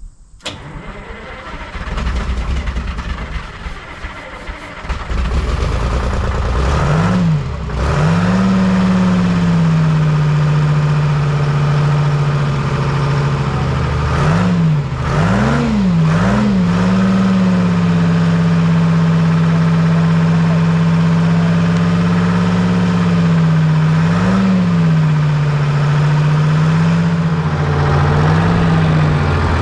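Diesel engine of a 1978 Hein-Werner excavator, brought back after years of sitting, building up and catching about seven seconds in, then running with its speed dipping and recovering a few times before holding steady.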